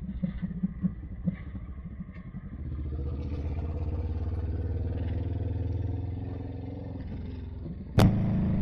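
Kawasaki Vulcan's engine under way, pulling up through the revs about two and a half seconds in, holding steady, then easing off. A sharp knock near the end, after which the engine note is louder.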